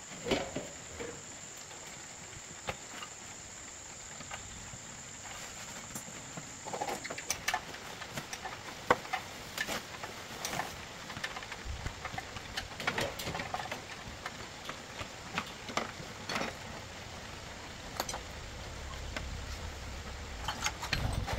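Scattered light clicks and knocks of tools and metal parts being handled during tractor bearing repair work. A steady high insect trill runs under them and stops about seven seconds in.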